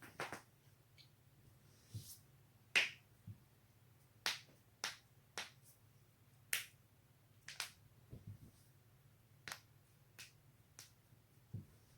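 Neck joints cracking: more than a dozen sharp pops at irregular intervals, some coming in quick pairs.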